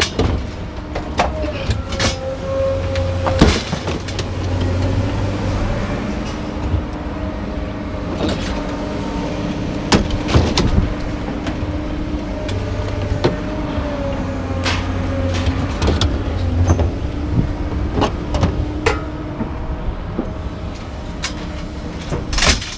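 Metal clanks and knocks of parts being worked loose by hand, many sharp hits scattered throughout, over a steady mechanical hum that swells twice.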